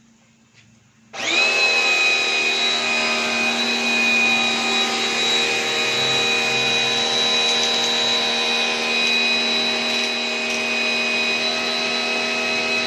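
Pressure washer starting about a second in and running steadily, a loud motor-and-pump sound with a high whine.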